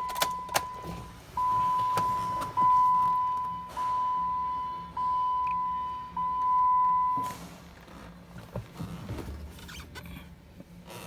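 Jeep Wrangler's electronic warning chime sounding six times, one steady tone each time, roughly a second apart, then stopping about seven seconds in. A few clicks come right at the start.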